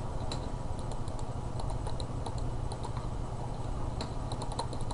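Scattered light clicks of a computer keyboard and mouse, with several in quick succession near the end, over a steady low hum.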